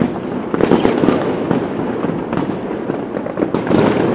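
Fireworks going off in a dense, continuous barrage: overlapping bangs and crackling pops.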